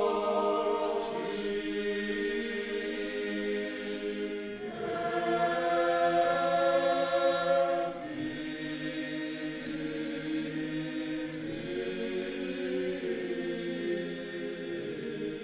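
Slow choral music: voices holding long chords that shift every few seconds, swelling for a few seconds near the middle.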